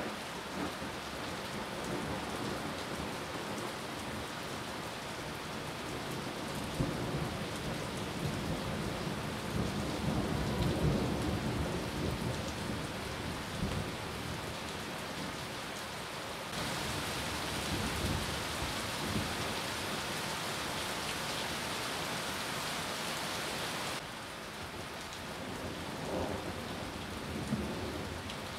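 Heavy rain of a thunderstorm falling steadily on tree leaves and surfaces, with a low rumble of thunder building and fading about eight to thirteen seconds in. Later the rain's hiss steps up brighter and louder for several seconds, then drops back.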